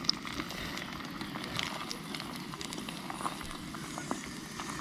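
Campfire crackling: irregular small pops and snaps over a steady hiss.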